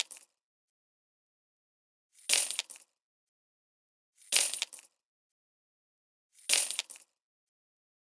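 Coins falling and clinking together, three times about two seconds apart, each a short jingle of about half a second. The tail of an earlier drop fades at the very start.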